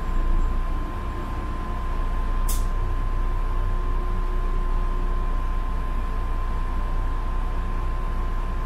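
Interior of a moving city bus: steady low engine and road rumble with a constant high whine. A brief sharp hiss about two and a half seconds in.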